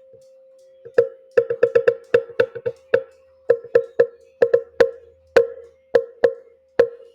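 Sharp wood-block-like percussion taps in an uneven, quick rhythm, starting about a second in, over a faint steady 528 Hz healing tone.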